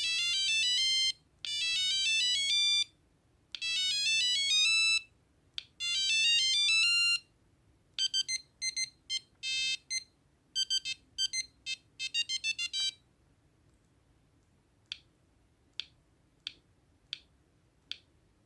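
Ericsson A2218z mobile phone playing its monophonic ringtones: bright, buzzy beeping notes in fast runs, four phrases with short gaps, then a quicker staccato tune that stops about thirteen seconds in. Near the end come five faint clicks, evenly spaced.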